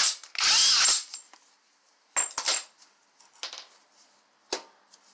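A cordless power tool runs in a short burst of under a second, spinning the retaining nut off the end of the CV axle at the front hub. A few light metal clinks follow as the loosened nut is handled at the hub.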